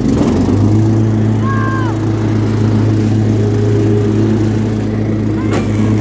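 Cub Cadet XT1 riding lawn mower engine running steadily, a loud even hum that settles in about half a second in.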